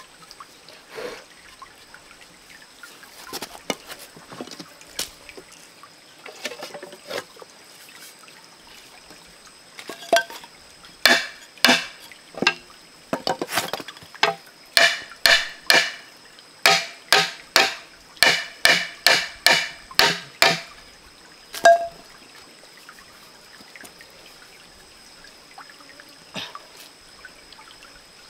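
Bamboo knocking on bamboo: a thin bamboo rod being tapped through a hole in an upright hollow bamboo tube with a short piece of bamboo, about twenty sharp, ringing knocks at two to three a second from about ten seconds in, after some light handling knocks. A stream trickles underneath.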